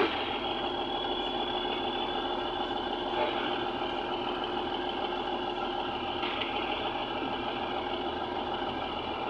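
Heavy machine engine idling steadily, an even drone with no revving.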